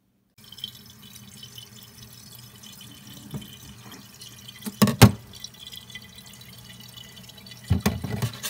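Thin stream of tap water running into a stainless steel sink while hilsa fish innards are rinsed under it by hand, with a few louder wet knocks about five seconds in and again near the end.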